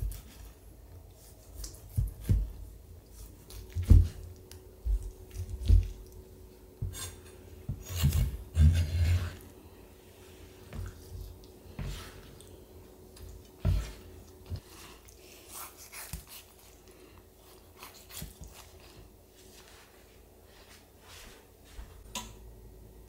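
A kitchen knife slices through braised pork on a plastic cutting board, making irregular thuds as the blade meets the board. The knocks are busiest in the first half, with a longer stretch of scraping and rubbing partway through.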